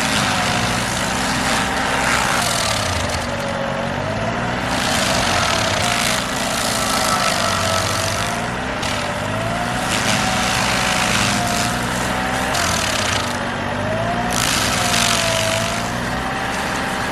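Stump grinder running under load, its cutter wheel grinding into a hard sugar maple stump. The engine's pitch sags and recovers in slow waves as the wheel bites and clears.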